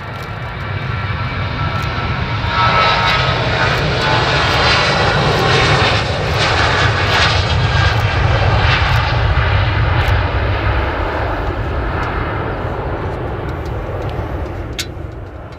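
Boeing 737-800's CFM56-7B turbofan engines at high power on take-off, passing close: a deep roar with a fan whine over it. It swells to its loudest about three seconds in, holds, then slowly fades.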